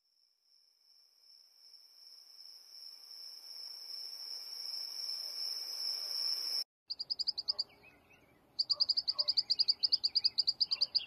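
A steady high-pitched trill fades in over about six seconds and cuts off abruptly. After a short break come runs of rapid high chirps, about eight a second, heard as two spliced nature recordings of chirping animals.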